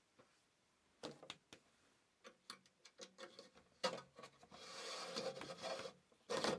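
Light clicks, taps and rubbing from handling a plastic ceiling box and Romex cable, with a rustle of about a second and a half as the cable is drawn through the box, and a louder knock near the end.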